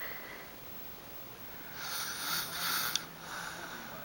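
Snoring: a long, hissy snoring breath about halfway through, ending in a short click, then a second, weaker breath near the end.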